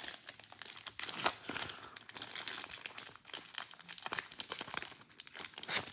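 Foil wrapper of a baseball card pack crinkling and tearing as it is ripped open by hand: a dense run of crackles, loudest near the end.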